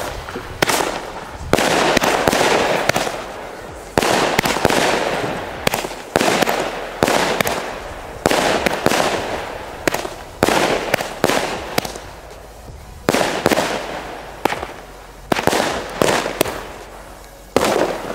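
Mikro 16 consumer fireworks battery firing shot after shot, each sudden bang followed by a hiss that fades, roughly one to two seconds apart.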